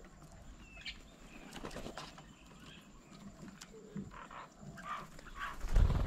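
Birds calling at a bird table: scattered short chirps and calls. A loud low thump comes near the end.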